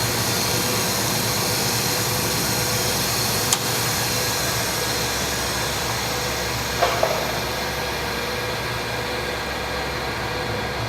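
Hardinge HLV-BK toolroom lathe running, a steady mechanical hum with a faint whine over it. A sharp click comes about three and a half seconds in, and two short clicks come near seven seconds.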